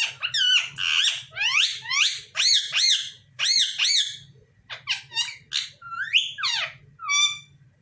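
Pet parrot calling: a quick run of high-pitched, arching squawks one after another, thinning out after about four seconds and ending in a short trilled call.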